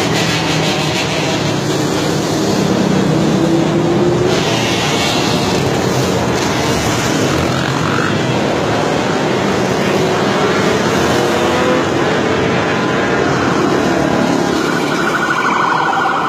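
Quad ATV engines revving up and down as they ride past, a loud continuous racket. Near the end a police siren joins in.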